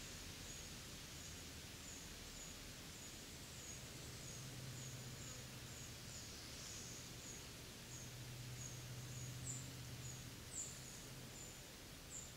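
Quiet summer woodland: a short, high chirp repeats about twice a second from a bird or insect, a few of them louder near the end, while a faint low hum comes and goes twice.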